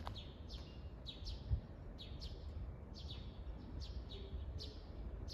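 A bird calling over and over: short, high notes that each fall in pitch, about two a second, over a steady low rumble.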